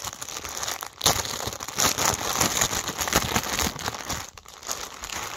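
Packaging crinkling and crackling as it is handled and opened to free a plush toy, a dense run of small crackles that thins out near the end.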